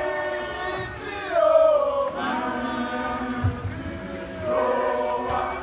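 A rugby team singing together in chorus, a group of voices on long held notes that slide down in pitch, swelling louder about a second in and again near the end.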